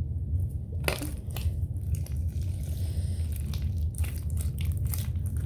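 Glue being squeezed out of its bottle for slime: irregular short clicks and squishes over a steady low hum.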